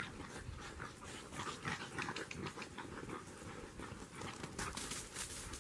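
A dog panting rapidly while it scuffles about on dry, dusty ground.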